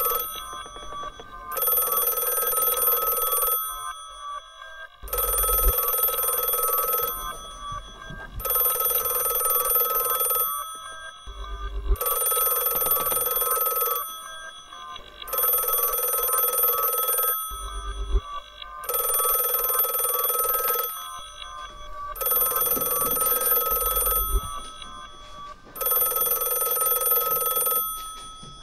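Rotary-dial telephone ringing over and over, unanswered: about two-second rings with pauses of about a second and a half between them. A deep low thud comes about every six seconds.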